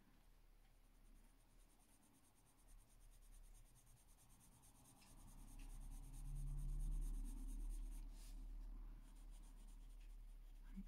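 Faint scratching of a coloured pencil shading on a colouring-book page, with a few light ticks of the pencil and a soft low rub of the hand on the paper about six seconds in.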